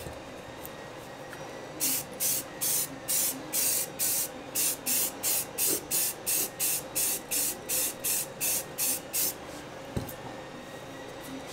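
Aerosol can of filler primer sprayed in short rapid bursts of hiss, about three a second for some seven seconds. A single knock near the end.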